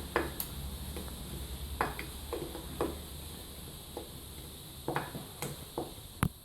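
Spoon stirring a condensed-milk, butter and chocolate-powder mixture in a deep bowl, clicking and scraping against the bowl in scattered short knocks, about a dozen over several seconds, over a low hum.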